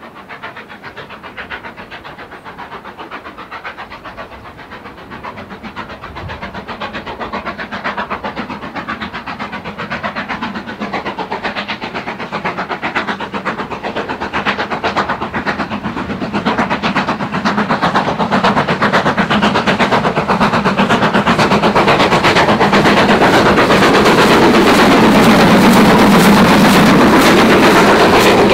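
Steam locomotive working hard at the head of a passenger train, a fast steady beat of exhaust chuffs growing louder as it draws near. Near the end it is loudest as the engine and coaches pass close, with the clatter of wheels on the rails.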